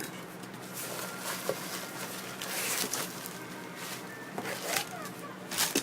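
Packaging being rummaged through: crinkly rustling of a plastic bag and box contents, loudest a little past halfway, with a few light knocks near the end.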